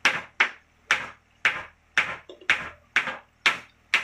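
Sharp knocks repeated steadily about twice a second, each with a brief ring, stopping at the end.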